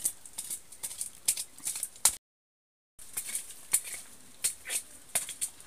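Irregular crackling and rustling of dry leaves and twigs being disturbed, with scattered sharp snaps, the loudest just after two seconds; the sound drops out to silence for under a second soon after, then the crackling resumes.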